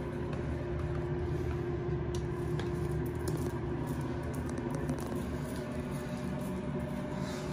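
Steady low mechanical hum with a faint held tone, as of background machinery, with a few light clicks from handling.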